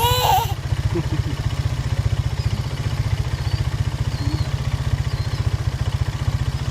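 Cat purring close to the microphone: a steady, rapid low rumble of pulses. A short high call sounds right at the start.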